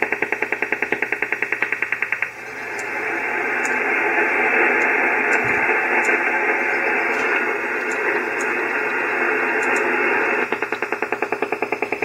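Shortwave radio receiver in AM mode playing a pulsed over-the-horizon-radar-like signal, a fast even pulsing of about ten beats a second, like the old Russian Woodpecker. About two seconds in the pulsing gives way to steady static hiss as the receiver is retuned, and the pulsing comes back near the end.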